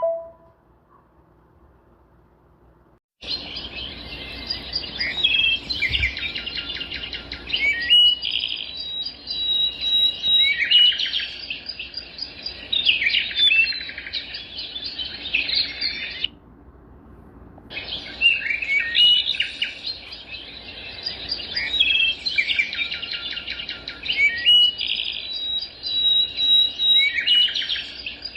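Birds chirping and trilling in a busy chorus of overlapping calls. It starts abruptly about three seconds in, stops for about a second and a half midway, then starts again.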